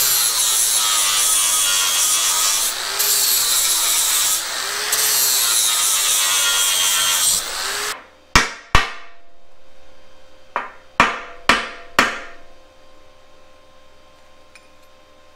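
Angle grinder with a flap disc grinding off steel tack welds, its motor note dipping and rising under load, then stopping abruptly about eight seconds in. After it, about six sharp metallic clinks, each with a short ring, as the separated steel pieces are handled.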